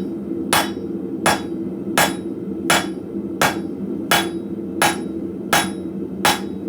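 Blacksmith's hammer striking hot coil-spring steel on an anvil in nine evenly spaced blows, a little more than one a second, flattening two sides of a round taper.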